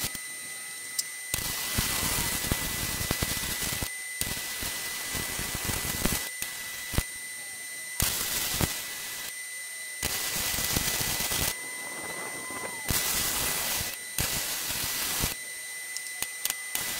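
Hobart Beta MIG 200 transformer MIG welder's arc crackling and sizzling on steel beams, in a string of short beads a second or two long with brief pauses between them. A faint steady high tone runs underneath.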